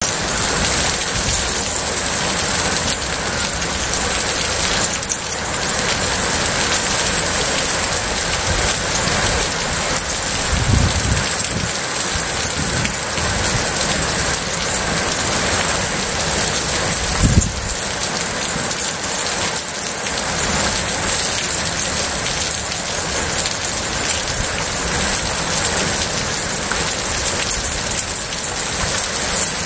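Heavy rain pouring steadily onto a paved street and splashing on the wet surface, with two brief low thuds, one about eleven seconds in and one about seventeen seconds in.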